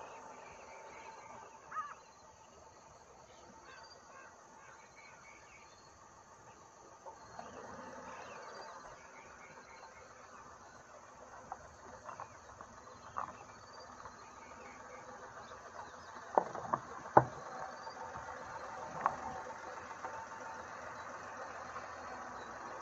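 Renault Triber's three-cylinder petrol engine running at low speed as the car creeps closer over rough dirt, slowly growing louder, with a few sharp knocks about two-thirds through. Insects and small birds chirp in the background.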